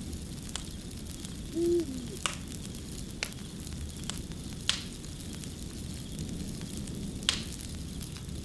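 Fire crackling over a steady low rush, with sharp pops every second or two. About two seconds in, an owl gives a single short low hoot that dips in pitch at its end; it is the loudest sound.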